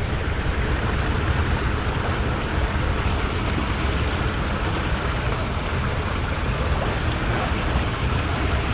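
Small stream running under snow and ice into a concrete culvert: a steady rushing of water.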